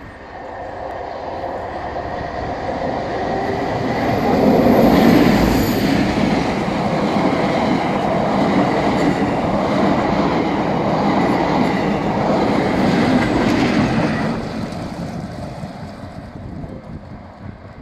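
A train passing close by: two Class 47 diesel locomotives, with Sulzer V12 engines, hauling an unpowered Class 720 electric multiple unit. The leading locomotive goes by loudest about five seconds in. Steady wheel-on-rail noise from the coaches follows until about fourteen seconds in, then it fades as the rear locomotive draws away.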